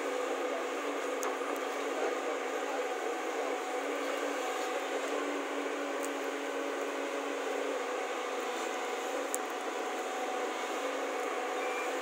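JCB backhoe loader's diesel engine running steadily, with a few faint clicks.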